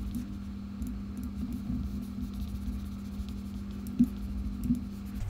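Steady low hum of room noise, with two faint computer-mouse clicks about four seconds in and shortly after.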